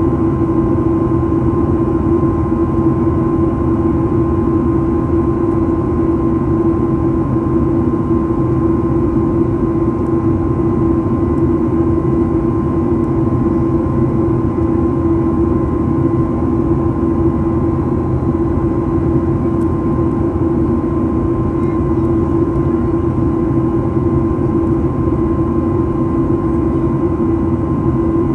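Boeing 737-800 cabin noise in flight: its CFM56-7B turbofan engines and the airflow make a steady rumble with two constant hums, a strong low one and a fainter higher one.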